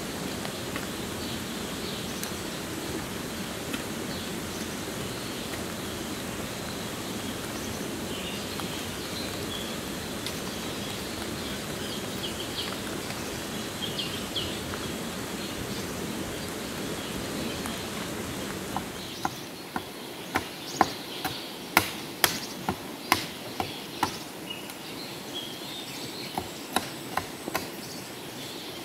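Steady outdoor background noise with faint bird and insect chirps. About 19 seconds in the background drops and a series of sharp, irregularly spaced knocks follows: tool strikes on wood.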